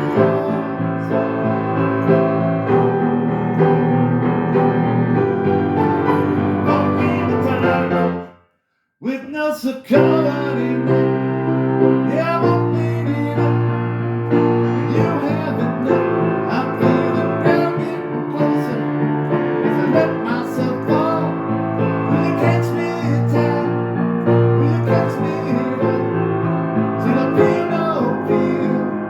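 Piano playing sustained chords. It cuts out completely for about half a second, eight seconds in, then resumes.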